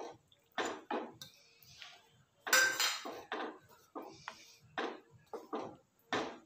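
Wooden spatula knocking and scraping against a metal kadhai while paneer cubes are stirred into thick spinach gravy: a string of short, uneven knocks, with a louder clatter about two and a half seconds in.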